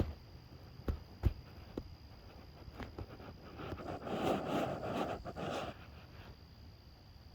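A few soft knocks, then about two seconds of rustling or scraping in the middle.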